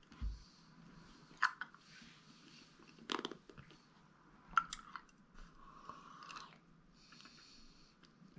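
A man breathing hard through his mouth against the burn of a Carolina Reaper chilli, with three sharp crunching mouth clicks about a second and a half apart.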